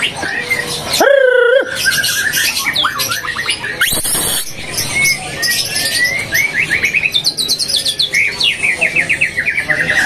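White-rumped shama (murai batu) singing in its cage: varied whistled phrases and quick chirping trills, the bird warming up and pouring out its learned song material. Near the end comes a fast run of repeated notes. A louder, lower note sounds about a second in, and a short hiss about 4 s in.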